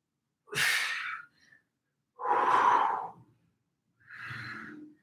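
A man breathing hard with effort while holding a core exercise: three audible breaths a little under two seconds apart, the last one quieter.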